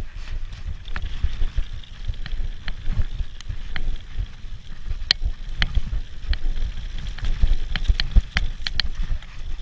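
Mountain bike riding fast down a dirt trail, picked up by a camera on the rider: wind buffeting the microphone as a heavy low rumble, with frequent sharp clicks and rattles from the bike over the rough ground.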